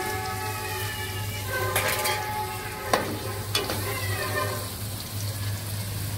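Chickpea balls deep-frying in hot oil in a steel pan over medium heat, the oil sizzling steadily. A metal skimmer stirs them, giving a few sharp clicks against the pan.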